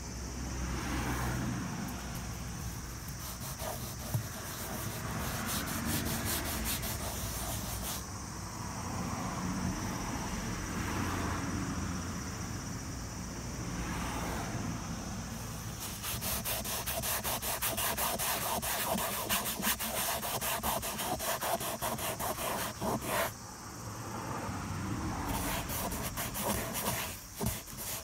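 Microfiber cloth rubbing back and forth over a textured plastic car door panel, wiping off foundation makeup marks. The strokes grow quicker and denser about halfway through, into a stretch of fast scrubbing.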